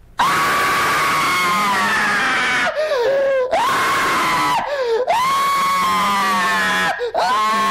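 A man screaming at the top of his voice close to a microphone. It is a run of long, high screams, one after another, with the pitch sagging at short breaks between them.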